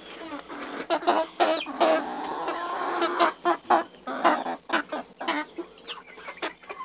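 A flock of hens clucking in many short calls, with one longer drawn-out call about two and a half seconds in. They are calling eagerly for the mealworms being handed out.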